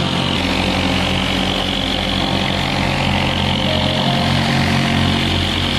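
Corded jigsaw running steadily, its blade cutting through a plywood sheet.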